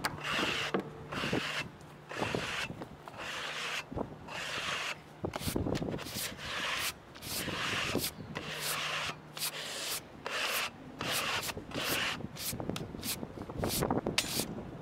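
A stiff hand brush and a push broom sweeping sawdust off the freshly sawn surface of a maple slab: a run of repeated scrubbing strokes that get quicker toward the end.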